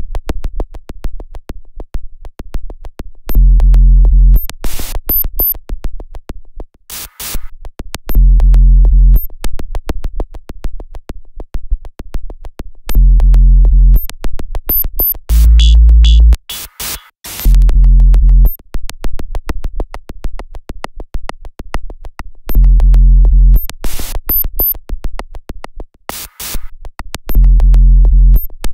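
Minimal glitch electronic noise music: a steady stream of sharp digital clicks, broken every four to five seconds by a low buzzing tone of about a second, with a few short bursts of hiss.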